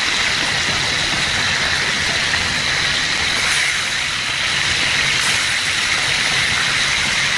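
Chicken breasts frying in hot oil in a large pan: a steady sizzle over a constant low mechanical hum, with a couple of light clicks as the pieces are turned with tongs.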